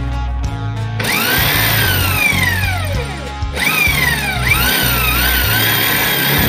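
Background music with a steady beat, over a small power tool whose whine starts about a second in and repeatedly rises and falls in pitch.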